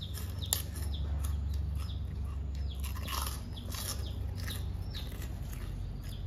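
Crispy fried cracker rings being snapped apart by hand and crunched while chewing: a run of sharp crackling snaps and crunches.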